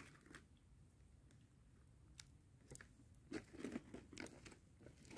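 Mostly quiet handling of a plastic ration-food pouch: faint crinkling and rustling with scattered small clicks, a little louder for about a second past the middle.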